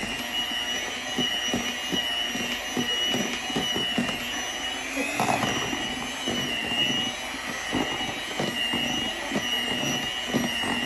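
Electric hand mixer running with a steady whine, its beaters churning a thick avocado-and-cream ice-cream base and knocking often against the sides of a plastic tub.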